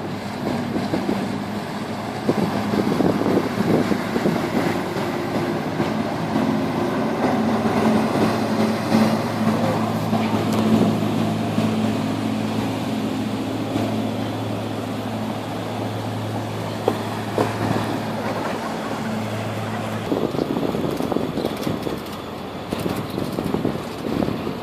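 Outdoor city background noise with a steady low engine hum that cuts off suddenly about twenty seconds in.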